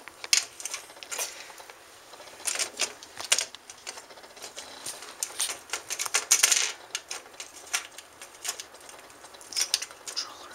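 Irregular plastic clicks, taps and scrapes from the shell halves and loose buttons of an Xbox 360 wireless controller being handled and pressed together during reassembly, with small clusters of clicks a few times through.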